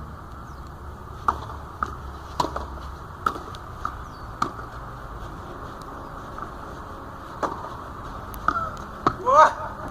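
Tennis ball being struck back and forth in a rally on a clay court: sharp pops of racquet hits and bounces roughly every half-second to second, a pause in the middle, then more hits and a short rising cry near the end.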